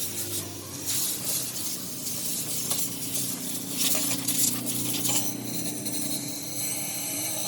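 Metal hand tools clinking and scraping against motorcycle parts during servicing, with irregular small clicks over a steady hiss.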